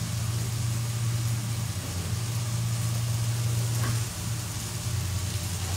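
Steady low motor hum, with a faint hiss of whole spices frying in ghee in a kadai.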